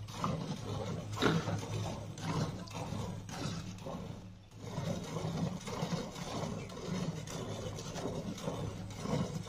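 Milk squirting from a cow's teats into a foam-topped steel bucket during hand-milking, a run of repeated soft squirts over a steady low hum.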